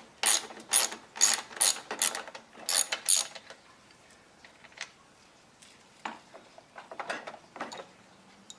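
A ratchet clicking in quick strokes, about three a second, which stop a little past three seconds in; a few softer scattered clicks follow.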